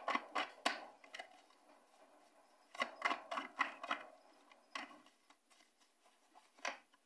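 Tarot or oracle cards being handled on a table: quick flurries of card clicks and rustles at the start and again about three seconds in, with a few single taps after.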